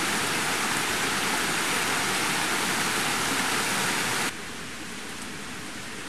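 Rushing river water, a loud steady roar of white-water rapids. About four seconds in it cuts off abruptly to a quieter steady hiss.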